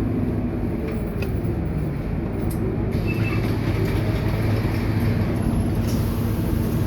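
Scania K230UB city bus heard from inside the cabin while under way: a steady low diesel engine hum with road and body noise. The noise gets a little brighter about three seconds in.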